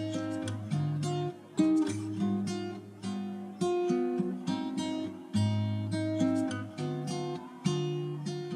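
Background music: acoustic guitar strumming chords at an even pace, about one strum a second.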